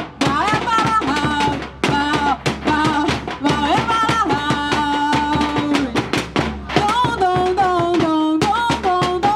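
Live band music: steady drumming and percussion with a melody of held, sliding notes over it.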